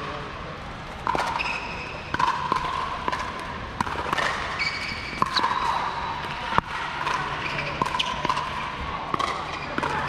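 Pickleball rally: sharp pops of paddles striking a hollow plastic pickleball, coming every half second to second with a short ring after each, the sharpest hit about six and a half seconds in. Fainter pops from neighbouring courts mix in.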